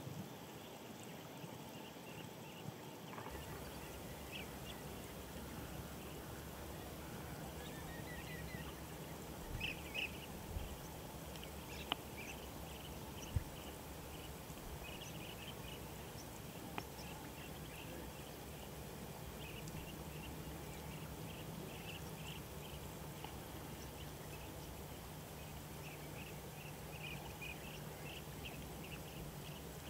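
Outdoor field ambience: a steady hiss with many short, high chirps from birds in the background, coming in clusters through most of the stretch. There is a brief rising run of notes early on, and a few sharp clicks in the middle.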